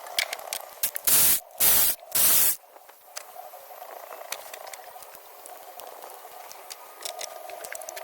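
Three short, loud hissing blasts in quick succession, starting about a second in, with faint scattered clicks around them.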